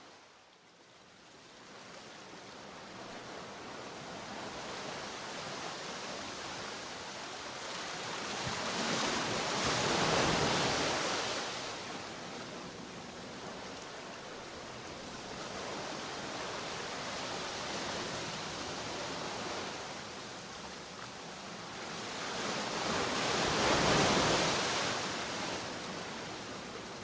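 Steady rushing noise with no tone or rhythm, swelling louder twice, once about ten seconds in and again near the end, like slow washes of surf.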